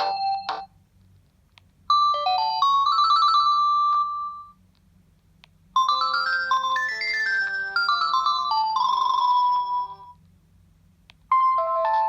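Panasonic KX-TGA850E cordless phone handset playing its ringtone melodies one after another: a short electronic tune about two seconds in, a longer one from about six seconds, and the next starting near the end, with a second or so of quiet between them.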